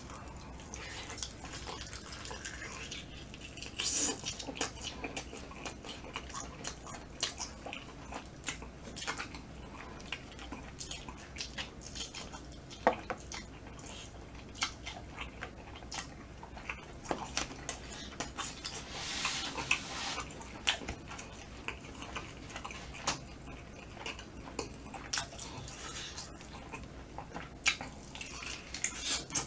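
Close-miked eating of a smoked chicken leg: soft, scattered wet chewing and lip-smacking clicks as the meat is bitten and chewed.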